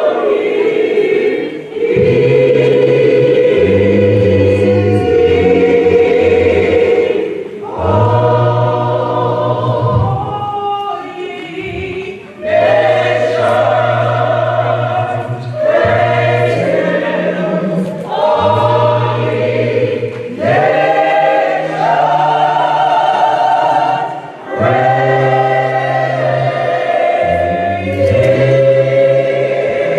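A gospel choir singing a slow hymn in long held chords that change every two to three seconds.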